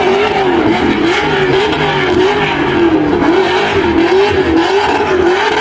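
Car engine revving hard through a tyre burnout, with wheelspin noise. The pitch dips and climbs again about twice a second as the throttle is worked.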